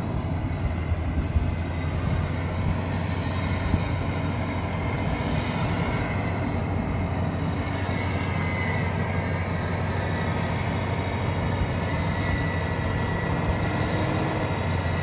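Off-road vehicle's engine running with a steady low hum while its winch pulls it slowly up a muddy slope on the cable.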